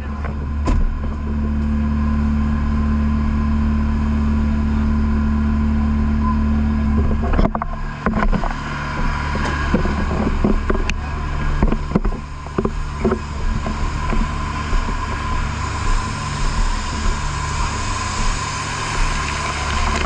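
Fire pumper truck's engine running steadily. About seven seconds in its note changes and the level drops a little, with scattered knocks and clatter after that.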